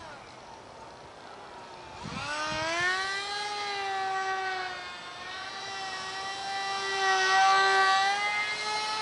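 Ultra micro RC jet's small electric motor whining in flight. About two seconds in the whine rises in pitch and grows louder, then holds with small wavers.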